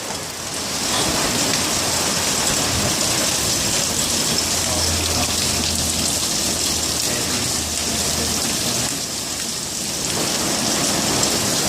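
Heavy wind-driven rain in a windstorm, a steady hiss of rain, with a low rumble of wind for a few seconds in the middle.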